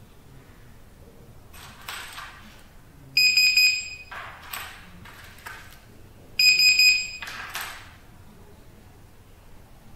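Built-in buzzer of a keypad RFID access control unit giving two high beeps, each a bit under a second and about three seconds apart, with soft rustling handling sounds between them.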